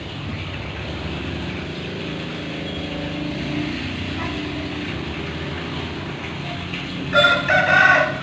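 Steady low rumble of a motor vehicle running in the background. About seven seconds in, a rooster starts crowing loudly.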